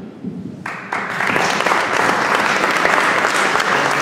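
Audience applauding. It breaks out less than a second in and holds at a steady level.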